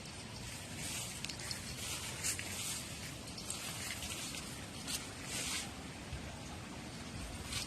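Strong wind buffeting the microphone as a steady low rumble, with scattered short rustling crackles throughout.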